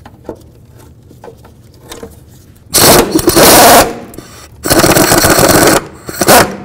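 A few faint metal clicks, then an impact wrench hammering in two bursts of about a second each and a short third burst near the end, spinning the castle nut off the upper ball joint stud.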